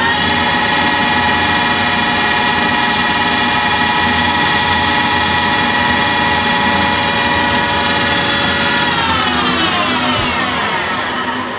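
CNC lathe spindle turning a brass primer module at steady speed with a high whine while the part is faced and the primer pocket cut. About nine seconds in, the spindle winds down and the whine falls in pitch as the cycle ends.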